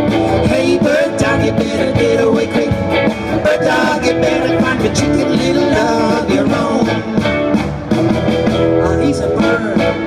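Live band playing rock and roll on electric guitars and a drum kit.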